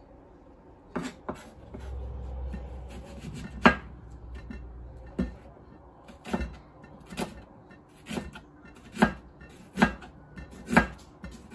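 Kitchen knife slicing a red onion on a plastic cutting board: each cut ends in a sharp knock of the blade on the board, about one a second in the second half, with the loudest knock a few seconds in.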